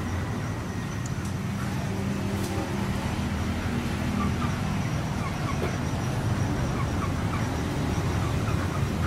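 Steady low rumble of a running engine or road traffic, with faint short bird chirps scattered through the second half.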